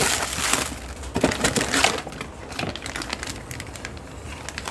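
Plastic wrapping crinkling and a cardboard box rustling as a part is unpacked by hand. It is loudest over the first two seconds, then lighter rustles and taps follow.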